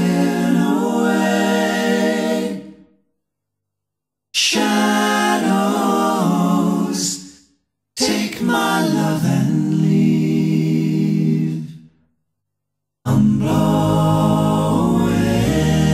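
Background music with singing voices, in sections that fade out to silence about three seconds in and again about twelve seconds in, with a brief break near eight seconds; the last section comes in fuller, with a deep bass.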